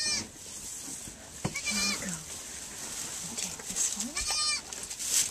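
A goat bleating three times, short wavering calls about two seconds apart, with a single sharp click about one and a half seconds in.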